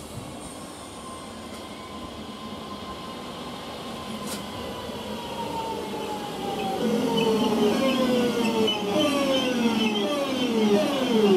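Class 323 electric multiple unit running into the platform, its traction motors whining in several tones that fall steadily in pitch as it brakes, over the rumble of its wheels. The whine grows louder and drops faster toward the end.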